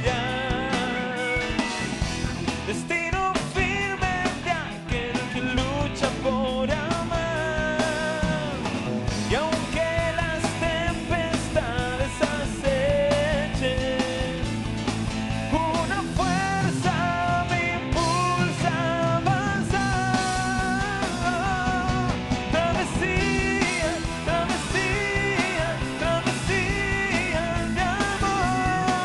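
Live rock band music: a melodic lead line over a steady beat.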